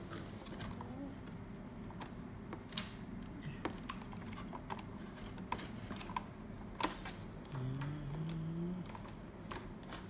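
Fingers tapping, clicking and rubbing on the plastic underside and brush cover of a Xiaomi Mi Robot Vacuum-Mop P, a string of irregular small clicks and knocks. A short low hum of a voice rises briefly about eight seconds in.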